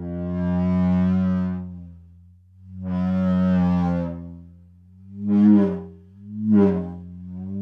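Superball mallet rubbed across a snare drum head, drawing out moaning friction tones. There are two long held moans, then two shorter, louder ones about a second apart that bend in pitch, over a steady low hum.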